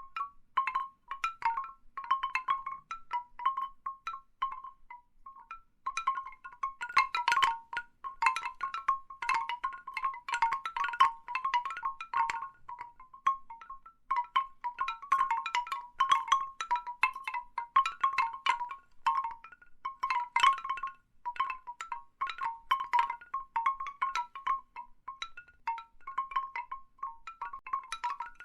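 Large bamboo wind chimes knocking together irregularly: hollow wooden clacks around one main pitch, in busy clusters with a sparser lull about four to six seconds in.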